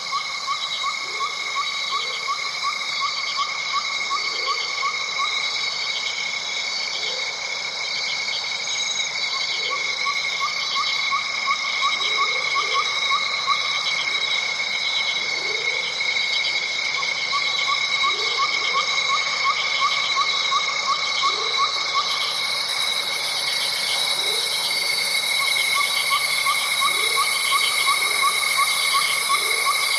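Night chorus of insects and frogs: several steady shrill insect trills, a pulsing trill that comes in phrases a few seconds long with short gaps, and short low rising calls repeating every second or two.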